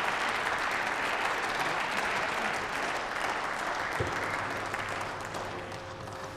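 Applause that slowly fades. About four seconds in, a steady low hum from the motorised lectern starts as it is raised.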